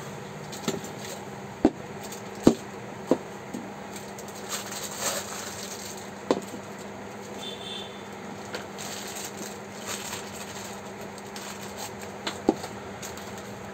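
Stainless steel mixer-grinder jars being handled and set down on a tabletop: about five sharp clunks, the loudest a few seconds in, with plastic wrapping crinkling in between.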